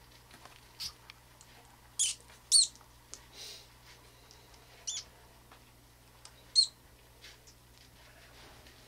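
Newborn pinky mouse giving several short, high-pitched squeaks a second or two apart: distress squeaks as an African bullfrog seizes it and holds it in its mouth.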